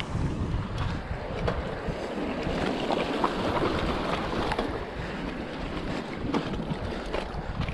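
Mountain bike tyres splashing through a shallow stream ford and rattling over loose stones, with many short clicks and knocks from the bike, under wind noise on the microphone.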